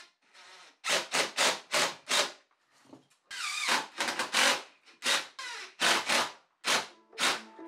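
Cordless drill driving screws through Fermacell gypsum-fibre board into timber studs, in a series of short bursts with one longer run about three seconds in.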